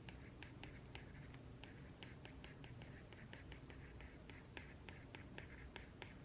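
Quiet desk work: faint, irregular soft ticks and taps, several a second, from a pen or keys, over a low steady room hum.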